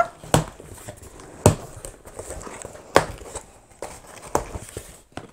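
Cardboard shipping box being opened by hand: flaps pulled up and folded back, with rustling and several sharp cardboard knocks, the loudest about a second and a half in and again at three seconds.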